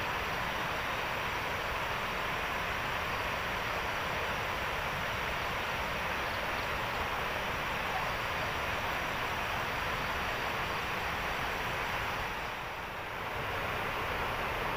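A steady rushing noise at an even level, dipping briefly near the end.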